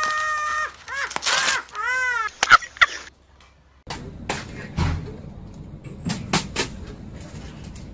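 A cat meowing loudly several times in quick succession, each call rising and falling in pitch. After a short pause come a few sharp knocks and clicks, with one dull thump about a second into them.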